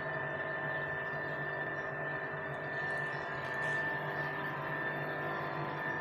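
Industrial laundry machinery running: a steady hum with a constant high-pitched tone over it.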